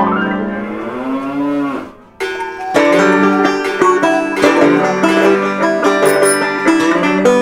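A Gir bull's long moo, rising then falling in pitch and ending about two seconds in. Plucked-string background music follows.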